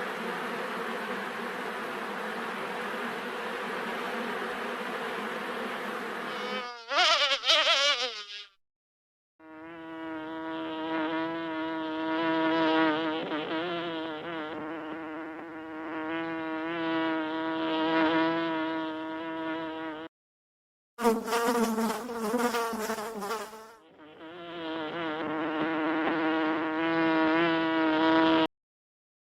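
Bees buzzing in several spliced clips: first a steady, hazier buzz, then a brief loud buzz that glides in pitch about seven seconds in, then a close, wavering, single-pitched wing buzz. The buzz cuts off abruptly a few times and stops about a second before the end.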